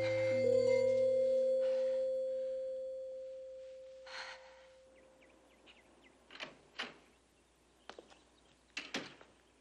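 A sustained chord of the drama's background music, held from the start and fading away over about five seconds. In the quieter second half, a few short bird chirps.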